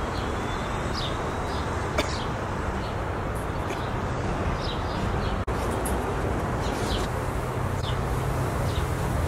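Steady outdoor background noise with short bird chirps scattered throughout. There is a single click about two seconds in and a momentary dropout about five and a half seconds in.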